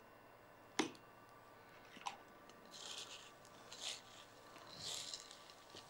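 Faint kitchen handling sounds: a small spoon taps sharply against a salt container once, about a second in. Then come several short, soft dry rustles about a second apart as salt is spooned over a bowl of dry fried poha, nuts and roasted gram and the mix is moved.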